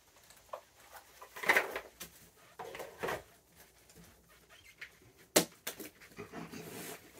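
Raccoons feeding at close range: scattered scuffles and noisy rustles, with a sharp click about five seconds in.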